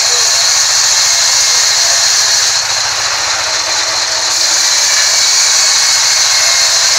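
Vertical band saw mill cutting lengthwise through a rain tree log: a loud, steady, high-pitched rasping hiss of the blade running through the wood.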